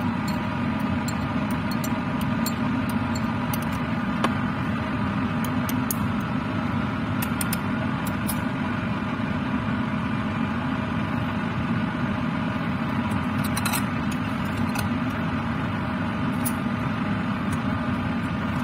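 Laminar air flow cabinet's blower fan running with a steady drone, over faint light clinks of steel forceps and glass petri dishes being handled on the steel work surface.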